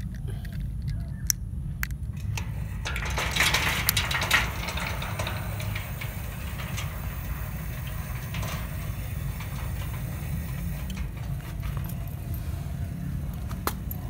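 AGS electric swing-gate arm opener running after a press of its remote, a steady low hum as the arm moves the gate. There is a louder noisy stretch about three to four seconds in and a few sharp clicks.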